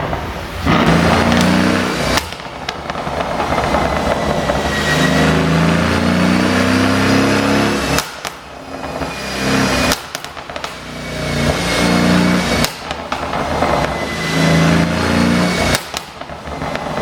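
Mercedes-AMG S63's twin-turbo V8 revved up several times, each rev ending in sharp pops and bangs from the exhaust as the throttle closes, the sound of a pop-and-crackle exhaust tune.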